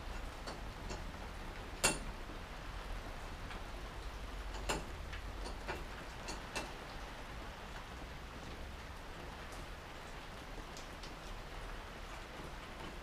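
Scattered light metallic clicks and taps of hand tools on a metal lathe's toolpost as the cutting tool is adjusted and clamped. The three sharpest clicks come about 2, 5 and 6.5 seconds in, over a faint steady low hum.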